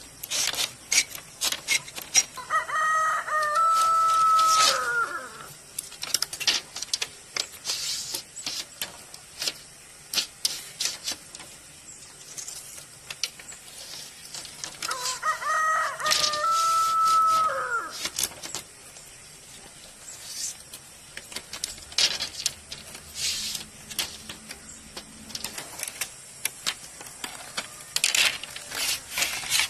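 A rooster crows twice, about twelve seconds apart, each a long call that ends in a falling note. Throughout, split bamboo strips clatter and tap against each other and the concrete as they are woven into a flat panel.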